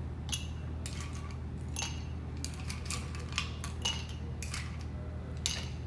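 Ice cubes dropped one after another into a highball glass: a run of about ten sharp clinks with brief glassy ringing.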